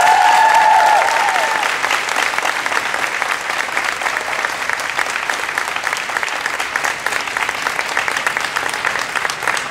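An audience applauding steadily, many people clapping together. There are a few brief high cheering calls in the first second or so.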